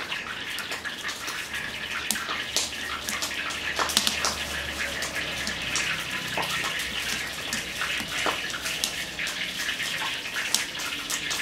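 Steady rushing hiss of water, with many small clicks scattered through it.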